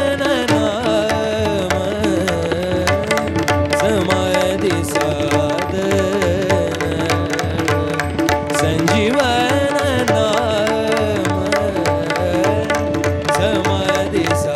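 Marathi devotional abhang music: an ornamented, wavering melody over a sustained drone, with a hand drum beating steadily.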